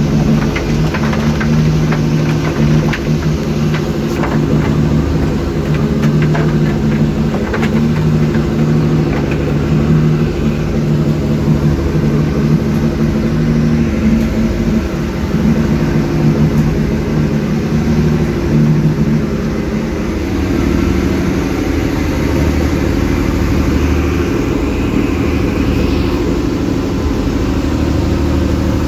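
Fishing boat's engine running steadily while under way, over the rush of the wake; its tone shifts a little about twenty seconds in.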